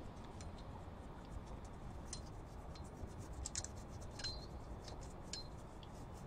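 Faint, scattered metallic clicks and clinks from brake parts and tools being handled, a few of them ringing briefly, over a low steady background hum.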